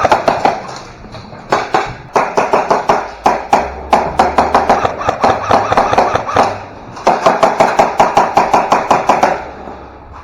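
Airsoft gun firing on full auto in several long, rapid bursts with short pauses between them. The last burst stops about nine seconds in.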